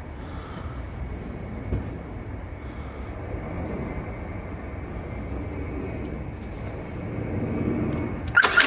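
Steady low rumble of an engine running. Near the end a loud, fast, even clatter begins.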